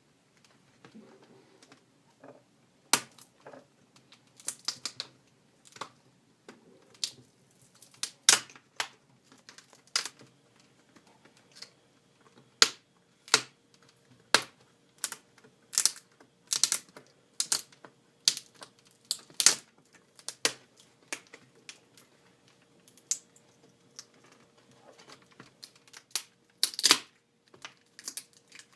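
Plastic retaining clips of an HP Pavilion DV6 laptop's screen bezel cracking and snapping open as the bezel is pried off, a long irregular series of sharp clicks.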